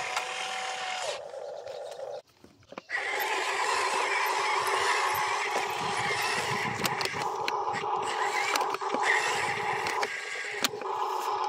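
Small electric motors and gearboxes of a toy RC excavator and a rock-laden HUINA RC dump truck whining as they run. The sound cuts out briefly about two seconds in, then the truck's drive motor whirs steadily with scattered small clicks.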